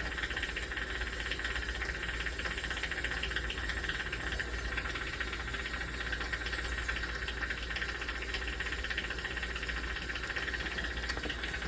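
Steady hiss over a low hum, unchanging throughout, with a few faint ticks near the end.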